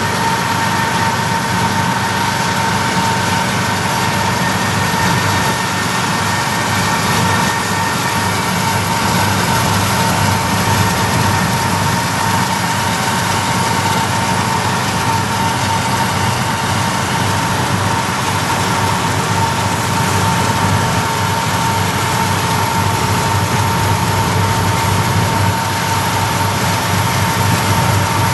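BNSF freight diesel locomotives running under power alongside: a steady low engine drone with a constant whine above it. Road and wind noise from the pacing vehicle is mixed in.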